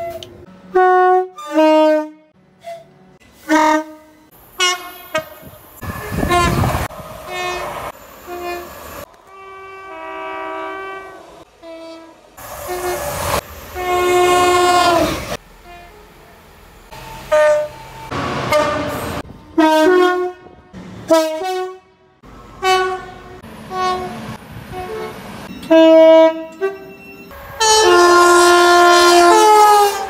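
A rapid string of British train warning horns, one after another: two-tone high and low notes, some short toots and some longer blasts, each cutting off sharply, with patches of passing-train rumble between some of them. The longest and loudest blast comes near the end.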